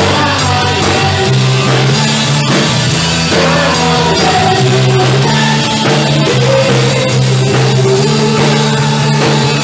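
Loud, steady rock-style praise and worship music played by a band with drum kit, bass and electric guitar.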